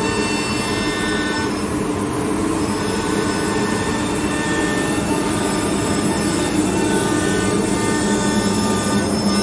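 A Holztek HT-R1M CNC nesting router at work on an MDF sheet: its spindle gives a steady high whine over the dense noise of cutting and dust extraction. The whine fades briefly about two seconds in.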